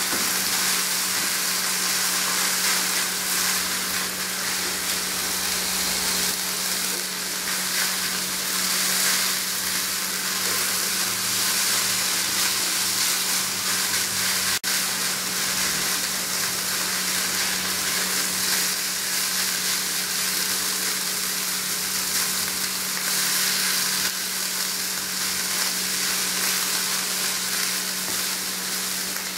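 Ground beef and two eggs sizzling steadily in a dry non-stick frying pan, stirred now and then with a silicone spatula. A steady low hum sits underneath.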